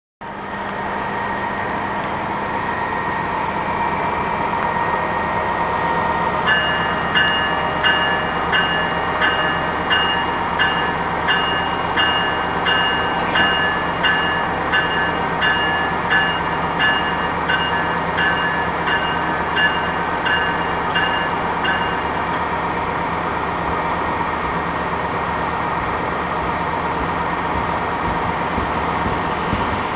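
NJ Transit push-pull train of multilevel coaches pulling out and rolling past, a steady rumble of wheels on rail. From several seconds in, for about fifteen seconds, a high ringing chime repeats about one and a half times a second.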